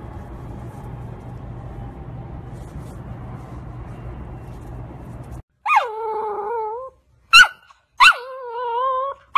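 A steady low hiss with a faint hum for the first five seconds or so, then, after a cut, a golden retriever puppy's little barks: a falling yelp into a wavering whine, a few short sharp yips, and another whine.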